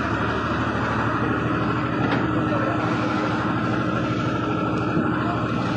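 Steady, loud rumbling noise around a large fire, with a constant engine-like hum running through it.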